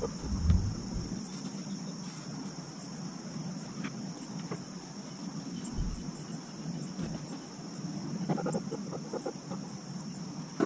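Steady high-pitched insect chorus droning without a break, with a low rumble in the first second and a few faint knocks and clatters, mostly near the end.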